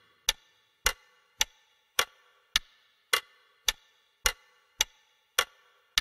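A steady run of sharp percussion ticks keeping time, about eleven evenly spaced strikes a little under two per second, each with a short ring.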